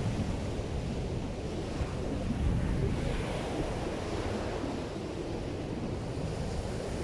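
Waves breaking on a sandy beach, with strong wind buffeting the microphone in a steady low rumble. The surf swells a little louder about two and a half seconds in.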